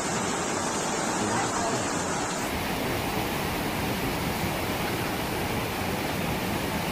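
Steady rushing of fast-flowing flash floodwater: a wide, even noise with no pauses. Its tone changes slightly about two and a half seconds in.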